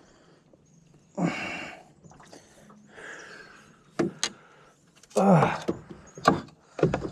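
A man breathing hard and exhaling after a strenuous struggle, with a few sharp knocks and clacks between the breaths.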